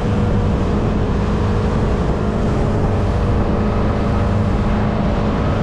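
Motorboat engine running steadily at speed, a constant low drone, with wind and water rushing past the moving boat.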